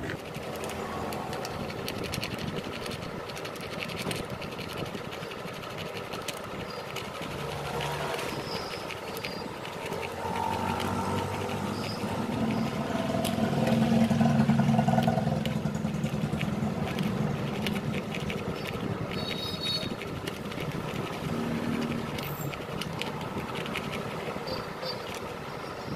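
Abrasive paper scraping over the copper commutator of a Honda Shine's starter motor armature, cleaning it. A vehicle engine swells and fades in the background about halfway through, the loudest sound.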